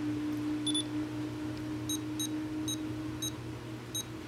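Futaba 14SG radio transmitter beeping as its menu is scrolled: one short beep, then five more short beeps at uneven intervals over the next two seconds or so, over a faint steady hum.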